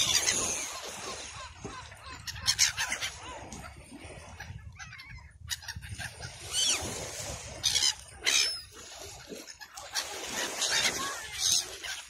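A flock of gulls calling overhead, many short squealing calls overlapping, with several short loud rushes of noise and a steady low rumble underneath.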